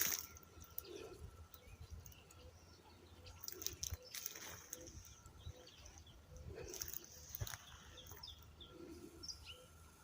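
Birds calling faintly: scattered short high chirps, with a quick run of them near the end, and soft low calls every few seconds, over faint clicks and a low rumble.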